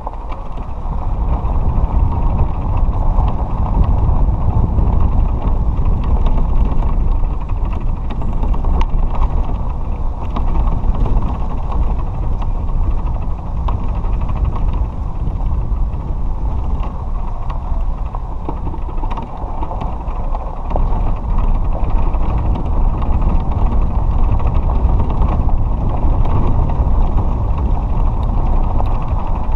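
Golf cart driving along a gravel lane: a steady low rumble of tyres and motion, with frequent creaks and rattles from the cart's body.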